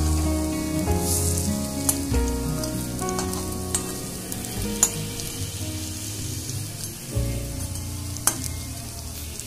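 Prawn-head and red-lentil fritters shallow-frying in hot oil in a kadai: a steady sizzle with fine crackles, and a metal spatula scraping the pan as they are turned. Soft background music with held notes runs underneath.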